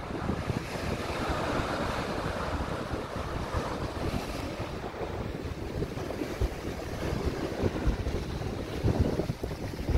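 Small waves breaking and washing over shoreline rocks, with wind buffeting the microphone in uneven gusts.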